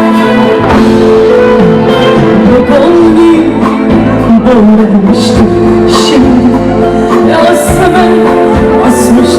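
Live band music with a singer, played loud and steady at a concert.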